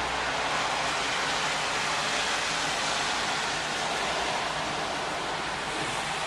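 Steady, even hiss of heavy rain falling during a thunderstorm.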